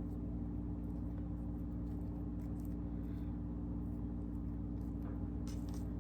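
Steady low hum of a running appliance or electrical mains hum, with a few faint soft taps and rustles about halfway through and near the end.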